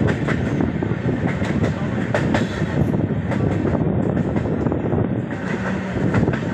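Train running along the track, heard from an open carriage window: a steady low noise of wheels on rails, with scattered short clicks.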